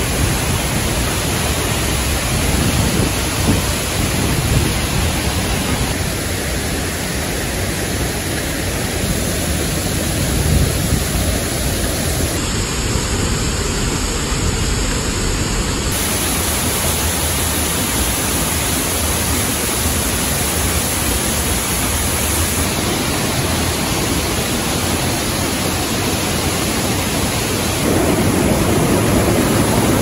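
Waterfalls rushing steadily. The sound changes abruptly a few times as it shifts from one fall to another. About two seconds before the end it gives way to a louder, fuller rush of river rapids over boulders.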